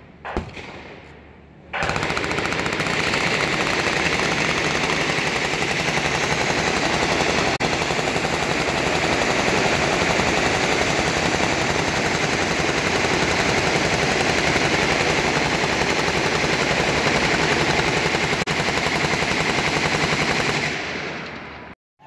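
Massed machine-gun fire: many automatic weapons firing together in one dense, unbroken rattle. It starts about two seconds in after a single sharp bang and stops abruptly near the end.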